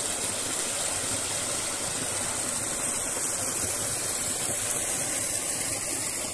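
Steady rush of flowing water from the spring-fed channel that feeds the waterfall, running toward the drop.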